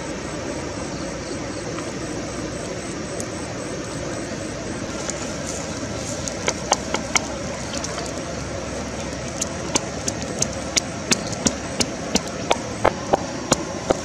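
Pestle pounding dried red chillies and salt in a wooden mortar: a few scattered knocks, then steady sharp strikes about three a second from about nine seconds in, over a steady background rush.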